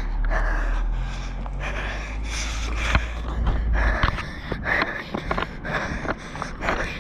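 Hard panting breaths of a person running, with quick footfalls on grass and pavement. Wind buffets the microphone with a low rumble that cuts off about four seconds in.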